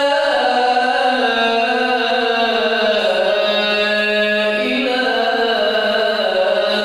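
A man's voice singing the adhan, the Islamic call to prayer, amplified through a handheld microphone. It is one long, ornamented phrase whose pitch steps down through the first half and climbs again near the end.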